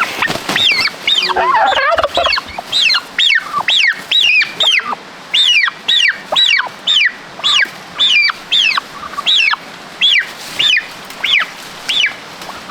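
A poultry bird calling over and over: short, high calls that rise and fall, about two a second, stopping near the end, with lower warbling calls mixed in during the first couple of seconds.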